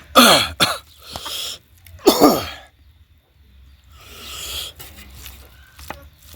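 A man coughing hard twice, the second fit about two seconds after the first, then a long hissing breath.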